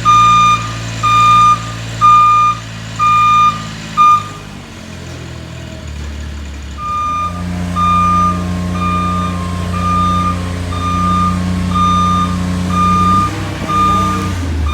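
Vehicle backup alarm beeping about once a second, stopping for a couple of seconds midway and then resuming, over a steadily running engine that grows louder as the beeping starts again.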